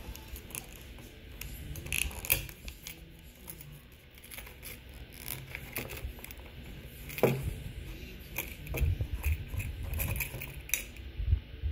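Buck 119 hunting knife and its leather sheath being handled and the knife drawn out: leather rubbing and scraping with scattered clicks and taps, the sharpest click about seven seconds in.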